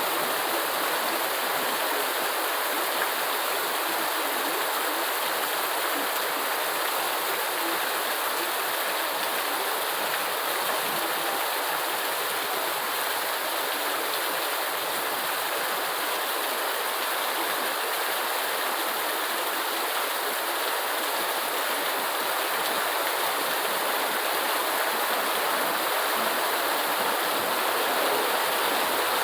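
Steady rain falling: an even, unbroken hiss with little low end.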